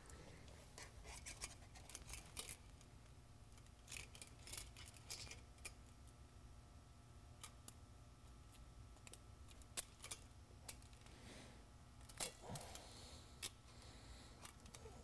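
Faint, irregular clicks and short rasps of plastic zip ties being threaded and pulled tight by hand, fastening wiring to a steel frame.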